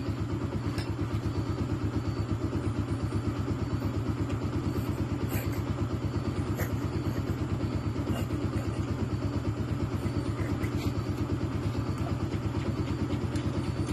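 A motorcycle engine idling steadily, with an even, rapid pulsing beat. A few faint clicks of metal parts being handled sound over it.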